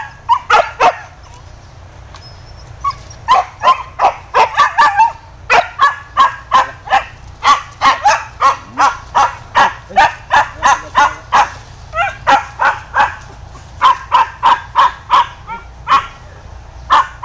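Boar-hunting dogs barking in long runs of sharp barks, about two or three a second, starting a few seconds in with a few short breaks.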